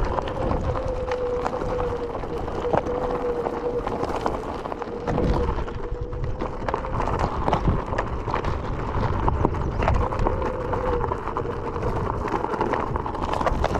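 Onewheel GT rolling over loose gravel: constant crunching with many small pebble clicks under the tyre, and a thin steady whine from its electric hub motor that fades out about halfway and comes back briefly later.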